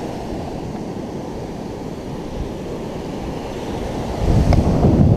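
Surf washing in on a sandy beach, a steady rush of breaking waves. About four seconds in it grows louder and heavier.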